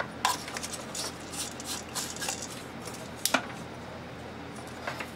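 Handling of a plastic CFL flood lamp base with a PL tube fitted: light plastic clicks and rustles, with one sharper click a little past three seconds in.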